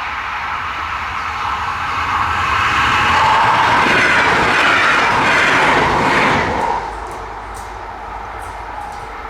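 Passenger train running past a level crossing. The rush of its wheels on the rails builds, stays loudest for a few seconds, then drops off sharply about seven seconds in as the last car goes by.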